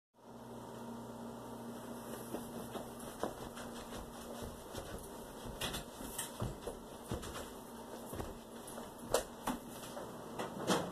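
Room tone with a low hum in the first half, and scattered light taps and knocks throughout, the two sharpest about nine seconds in and near the end.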